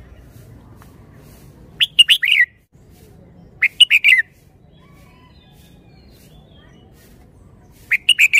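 Red-whiskered bulbul singing three short phrases of quick rising and falling notes, each under a second long, the last near the end.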